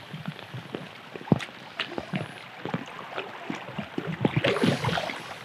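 River water sloshing and splashing around a landing net held in the current, with scattered low knocks. A louder splash comes about four and a half seconds in.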